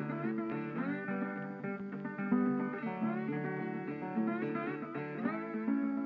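Background music: a plucked string instrument, guitar-like, playing a melody over chords, with some notes sliding up in pitch.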